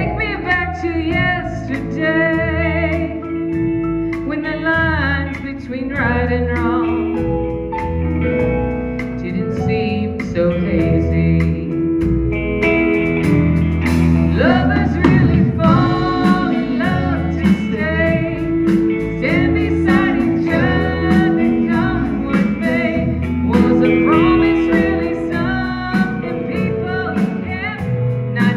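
Live country band playing, with a woman singing lead over electric guitar, bass guitar, drums and keyboard.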